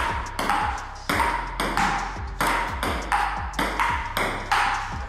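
Table tennis rally: the celluloid ball alternately struck by the paddles and bouncing on the table, a run of sharp pings about two a second, each with a short ringing tone.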